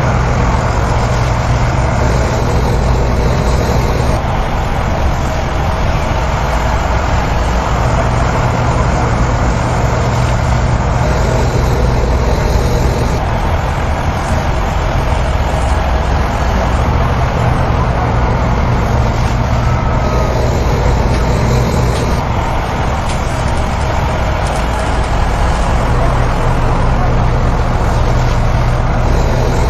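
Heavy diesel machinery running loud and continuously, its low engine drone swelling and easing every several seconds as the machines work under load.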